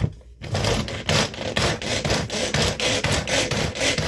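Hand-operated food chopper with a plastic bowl chopping red onion: rapid, even rasping strokes of the spinning blades through the onion pieces, about three or four a second, starting about half a second in after a single click.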